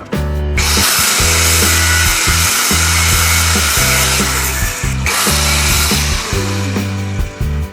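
Background music with a heavy, stepping bass line. Over it, from about half a second in, comes a loud harsh noise with a short break about five seconds in.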